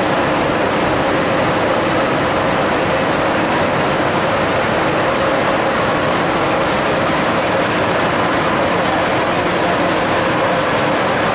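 Steady rumble and hum of electric trains in a large station train shed as one slowly pulls in to the platform. A faint, thin high whine comes and goes from about a second and a half in.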